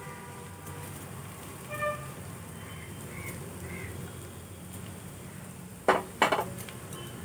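Chopped capsicum scraped off a plate into a frying pan of onions with a silicone spatula, over a steady low hum. There is a short pitched tone near two seconds in and two sharp utensil knocks about six seconds in.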